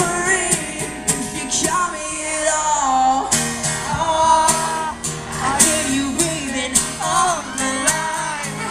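Live acoustic guitar accompanying a male singer's melodic vocal runs, with the song continuing through the whole stretch.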